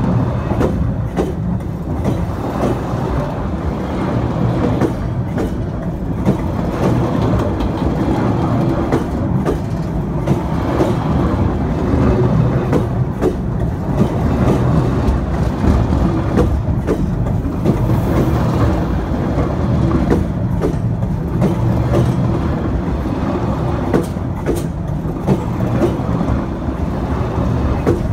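Freight wagons of a quarry stone train rolling directly over a camera lying between the rails: a loud, continuous low rumble of wheels on rail, with many clicks and clatters as the bogies pass over.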